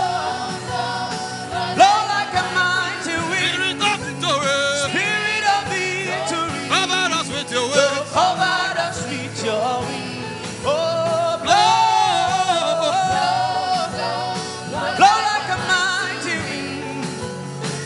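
A worship song: a singer holds long, wavering notes over instrumental backing with a steady beat.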